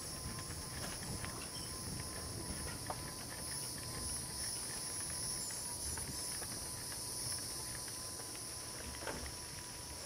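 Steady high-pitched chorus of insects trilling without a break, over a low rumble of wind and road noise from the moving trike.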